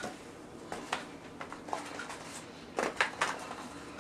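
Faint rustling and a few light clicks from cardboard slider boxes and paper wrappers being handled while eating, with a small cluster of them about three seconds in.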